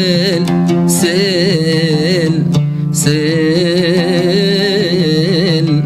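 A man singing long, wavering melismatic notes in Arabic, accompanying himself on the oud, with short breaths about a second in and around the middle.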